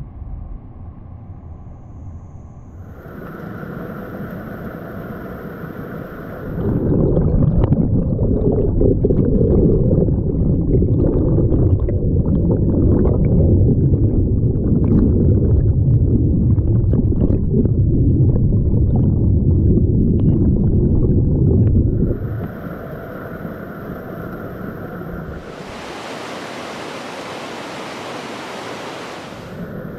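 Rushing stream water throughout. First a creek pouring over logs; then, from about seven seconds in, a louder muffled rumble with crackling bubbles, heard underwater in the current. At about twenty-two seconds it drops back to the rushing creek, and near the end the white water of rapids gives a bright, even hiss.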